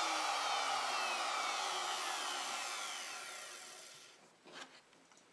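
Router with a 3/4-inch mortising bit spinning down after being switched off at the end of a groove cut: a falling whine that fades out over about four seconds, followed by a couple of faint knocks.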